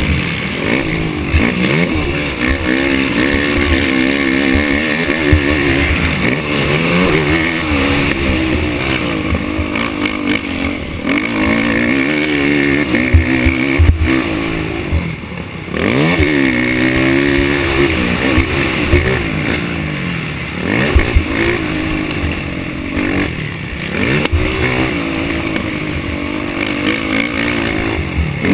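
Race ATV engine revving hard, recorded on board. Its pitch climbs and falls again and again as the throttle is worked and the gears change, with a short lift-off about halfway through. Frequent low thumps and rumble sit under the engine.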